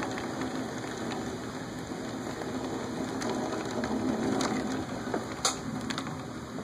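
Steady thunderstorm rain with scattered close drops ticking; one sharper tick comes about five and a half seconds in.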